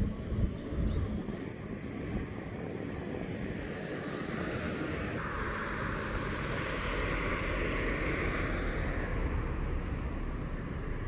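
A vehicle going by: a broad hiss of traffic that swells over a few seconds and fades away, over a steady low rumble.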